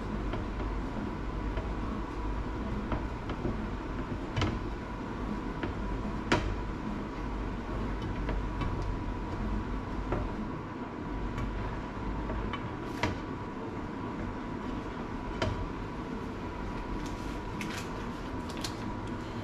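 Kitchen cooking sounds at a stovetop griddle: a steady low hum with a faint held tone, and scattered sharp clicks and clinks of utensils and cookware, the loudest about six seconds in.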